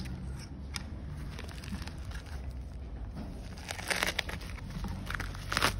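Plastic courier mailer bag crinkling and rustling as it is handled and pulled open, with sharper crackles about four seconds in and again near the end.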